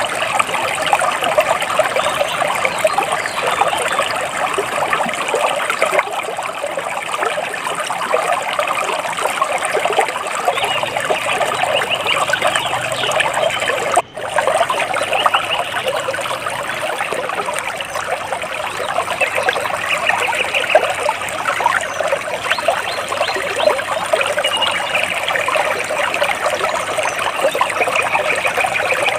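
Water trickling and splashing steadily, with faint bird chirps now and then. The sound cuts out for an instant about fourteen seconds in.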